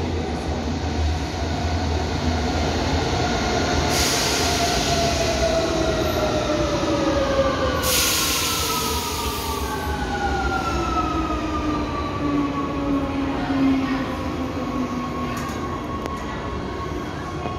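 Rome Metro Line B train slowing to a stop: a steady rumble, with a whine that falls slowly in pitch as it brakes. Two bursts of hissing come about four and eight seconds in.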